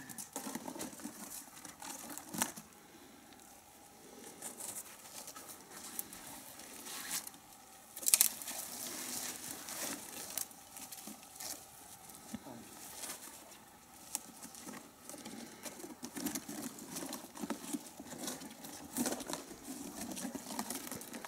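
Bare tree branches rustling and twigs cracking and snapping as someone climbs down through them, with a cardboard model plane scraping against the branches. The cracks come irregularly, the loudest about eight seconds in.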